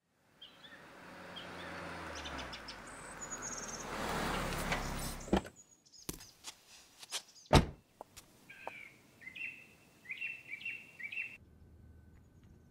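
A car's rising rumble builds and cuts off sharply, then a car door clicks open and is shut with a loud thud past the middle. Birds chirp afterwards.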